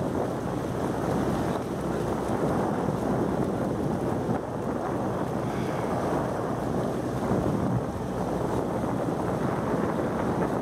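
Steady wind buffeting the microphone on a moving boat, with the boat's own running noise underneath.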